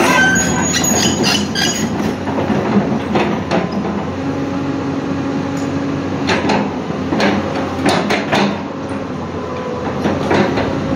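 A Hyundai hydraulic excavator's diesel engine runs steadily while its steel bucket scrapes and clanks against broken brick and concrete rubble. Clusters of knocks come in the first two seconds, around three seconds in, and again from about six to eight and a half seconds.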